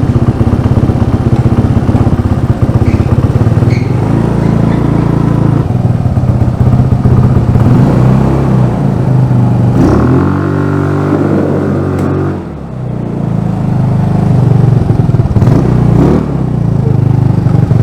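150cc GY6 single-cylinder four-stroke scooter engine driving a Power Wheels Jeep, running hard. About ten seconds in it revs up with a rising pitch, eases off briefly, then picks up again.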